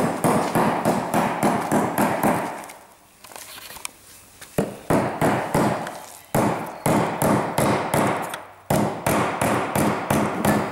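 Hammer striking a steel hub-nut locking tab washer on a wooden block, flattening the bent tab so it can be reused. The strikes come quick and sharp, about three a second in runs, with a pause of about two seconds early in the stretch.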